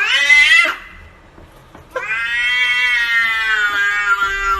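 A domestic cat yowling: a short rising call, then after a pause a long, drawn-out yowl from about two seconds in.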